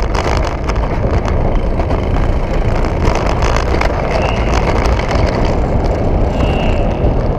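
Mountain coaster sled running fast down its metal rail track: a steady rumble of the wheels on the rail, mixed with wind rush on the helmet-mounted camera.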